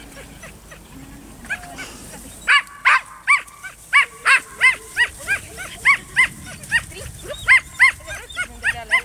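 Herding-dog puppy barking in a rapid run of short, high-pitched yips, about three a second, starting about two and a half seconds in after a couple of isolated yips.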